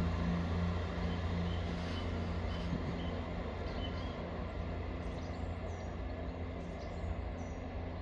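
Class 158 diesel multiple unit's engine giving a low, pulsing rumble that slowly fades as the train pulls away, with faint bird chirps.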